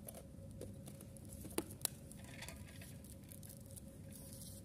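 Faint room noise with a thin steady hum, broken by two sharp clicks about a quarter of a second apart, roughly a second and a half in.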